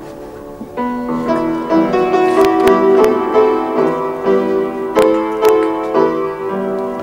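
Slow piano music: sustained notes and chords, fuller from about a second in, with a few faint clicks.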